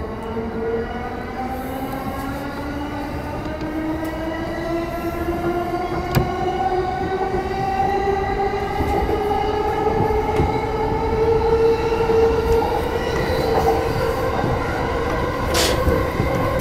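Yamanote Line E235-series electric train running, its traction motors whining in several tones that slowly rise in pitch as the train gathers speed, over the rumble of wheels on rail. A sharp click about six seconds in and another near the end.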